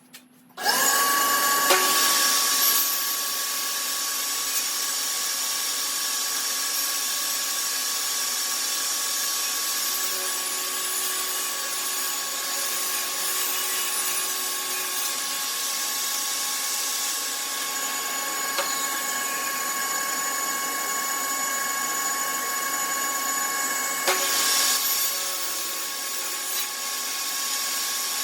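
Job site table saw switched on about half a second in, its motor spinning up to a steady, high whine and running on.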